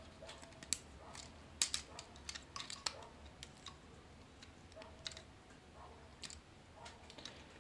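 Plastic joints and parts of a Takara Masterpiece MP-25 Tracks transforming robot figure clicking and ticking as they are turned and snapped into place by hand: a scattering of light, irregular clicks, a few of them sharper in the first three seconds.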